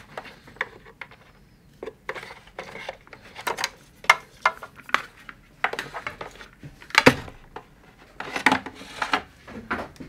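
Electrical cables being handled and pulled through a wiring enclosure, with irregular clicks, rattles and rustles of cable and hardware. The loudest knocks come about four, seven and eight and a half seconds in.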